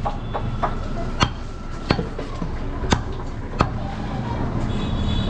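Butcher's cleaver chopping goat meat on a wooden log chopping block: four sharp chops, unevenly spaced about a second apart, with a few lighter knocks between them.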